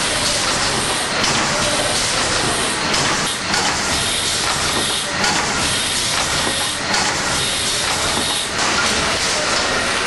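Triple-expansion steam pumping engine running: a loud, steady hiss of steam mixed with a dense clatter of its moving parts.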